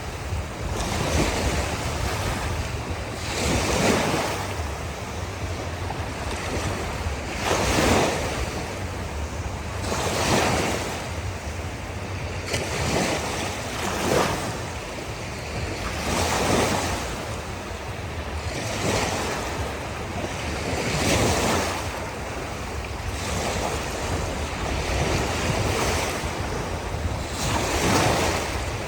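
Ocean waves breaking and washing onto a shore, a swell of surf every two to three seconds over a steady low rumble.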